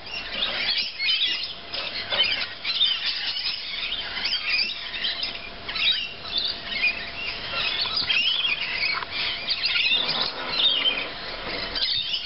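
Many birds calling at once: a dense chatter of short, high-pitched chirps and squawks overlapping without pause.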